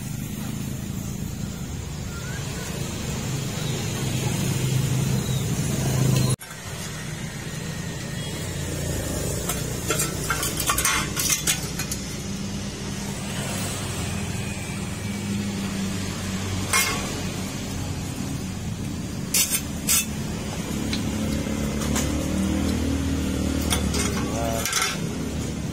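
Scattered metal clinks and light knocks as a removed brass radiator upper tank and its fittings are picked up and set down, over a steady low background rumble.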